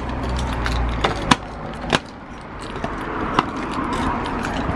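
Keys jangling and a key working the lock of a metal post office box, with a few sharp clicks.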